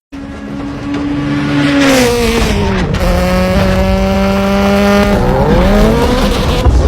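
A car engine running loud and high, its pitch falling over the first two seconds, holding steady, then dipping and climbing again about five seconds in.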